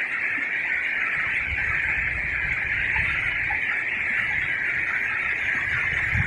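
Steady riverside ambience: a continuous, even high hiss, joined after about a second and a half by a low rumble.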